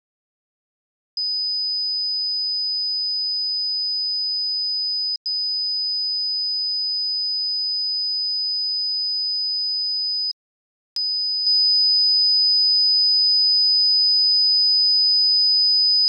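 Piezo buzzer of an Arduino fire alarm sounding a steady, high-pitched tone, set off as the flame and gas sensors pick up a lighter held to them. It starts about a second in, drops out for an instant near five seconds, stops at about ten seconds, then comes back just after eleven seconds and quickly gets louder.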